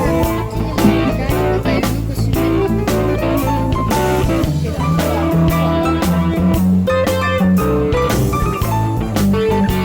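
Background music: a guitar-led instrumental with bass and drums and a steady beat.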